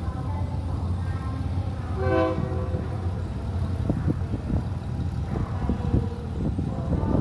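Diesel train engine rumbling, with a short horn toot about two seconds in, then a run of irregular clanks.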